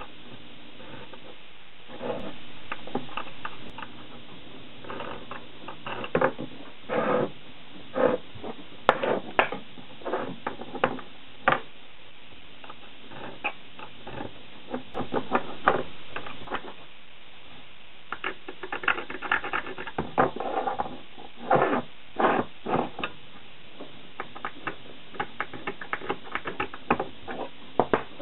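Small metal hand tools handled on a wooden bench: a combination square set against metal bar stock and a scriber marking layout lines, giving irregular clicks, taps and short scratching strokes in clusters, over a steady low background noise.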